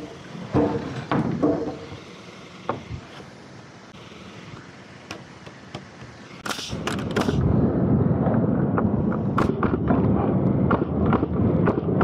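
Lumber being handled on a wooden frame: a few knocks of wood on wood, then, about seven seconds in, a board sliding and scraping across the framing with a steady rough rumble that lasts to the end.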